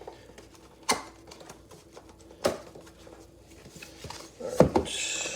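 A cardboard keyboard box being opened by hand: three sharp knocks or taps spaced a second or two apart, then a rustle of packaging near the end.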